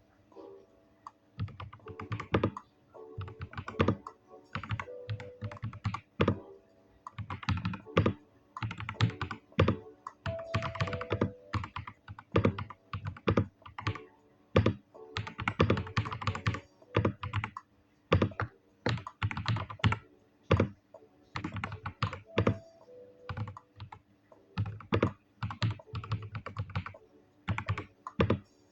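Typing on a Vortex Mono 75 mechanical keyboard with JX Jade White switches: quick runs of keystrokes broken by short pauses.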